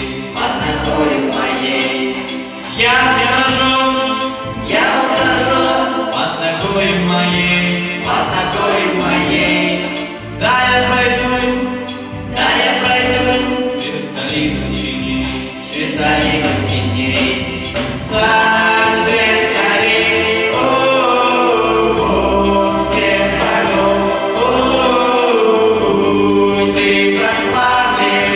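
A church choir of children and teenagers singing a worship song together into microphones.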